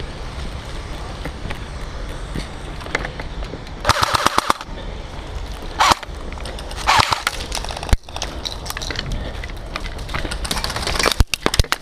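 Airsoft guns firing short, rapid bursts of sharp cracks: one burst about four seconds in, two shorter ones soon after, and another rapid string near the end, over a steady low rumble.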